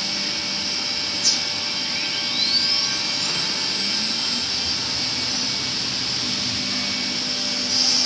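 CNC router's electric spindle running with a steady high whine over the hiss of its dust extraction, a short click just over a second in, and a whine rising in pitch a couple of seconds in. It gets louder near the end as the bit reaches the panel edge to drill side holes.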